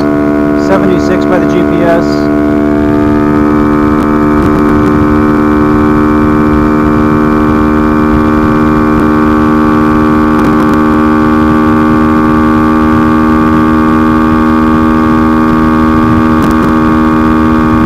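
Honda Monkey 125's air-cooled single-cylinder engine held flat out at a steady pitch in top gear during a top-speed run, with wind rushing over the microphone.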